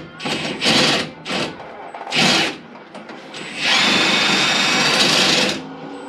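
Handheld cordless power tool running in short trigger bursts, about five of them, then held on for one steady run of about two seconds past the middle.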